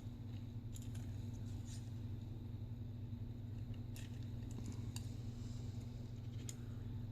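Steady low electrical hum in the background, with a few faint, light clicks and ticks from small phone parts being handled as the new LCD is fitted into the Sony Xperia Z.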